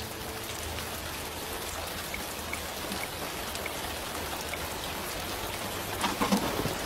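Steady rain falling, an even hiss with a few faint drips, and a few louder sudden knocks near the end.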